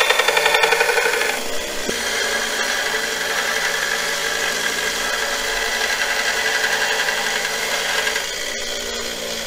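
A 1x30 belt grinder driven by a DC motor runs while steel lathe tools, a gouge among them, are ground against the moving abrasive belt: a steady motor whir with the rasp of metal rubbing on the belt. For the first second or so the sound pulses rapidly, then it settles to an even grind.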